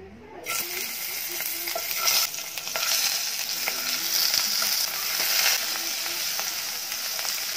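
Dried salted fish (tuyo) sizzling in hot oil as the pieces are laid into the pot with metal tongs. The hiss starts sharply about half a second in and keeps going strongly, with a few light clicks of the tongs.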